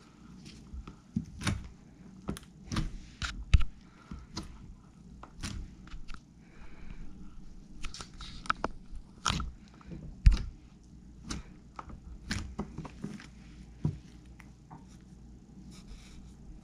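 Handmade slime being squeezed and worked by hand, giving irregular wet pops and crackly snaps about once a second, with two louder pops around four seconds in and again near ten seconds.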